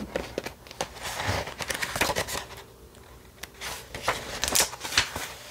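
Paper pages of a paperback picture book being handled and turned: a run of irregular rustles and flaps with light taps.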